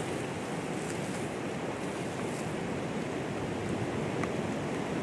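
Wind blowing: a steady, even rushing noise with no distinct events.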